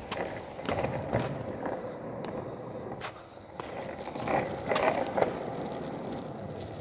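Longboard wheels rolling over rough pavement: a continuous gritty rumble that swells and fades, with a few sharp clicks and knocks along the way.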